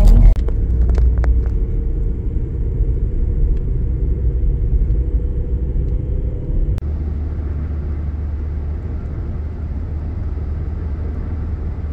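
Low, steady rumble of a car on the road, with a single sharp click about seven seconds in.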